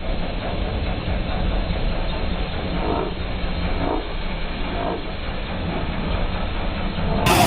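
Boat engine running steadily with a low, even rumble.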